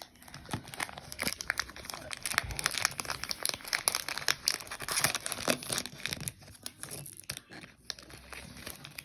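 Plastic foil wrapper of a Lorcana booster pack crinkling and tearing as it is opened by hand: a dense crackle that thins out in the last couple of seconds.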